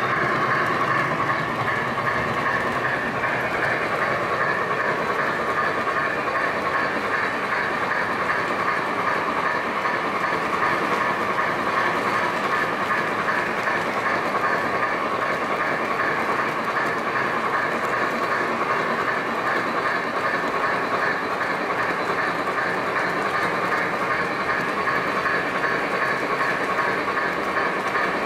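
O gauge model steam locomotive and its cars running on three-rail track, heard close up from a flatcar in the train: a steady rolling and motor running noise with a fast, even ripple, unchanging throughout.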